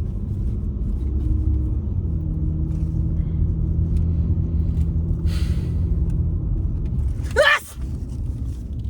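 Steady low rumble of a car heard from inside the cabin. About seven seconds in comes a single short, loud sneeze.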